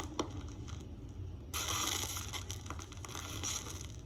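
Rustling and scraping close to the microphone, with a click just after the start; the rustle is loudest from about one and a half seconds in until shortly before the end.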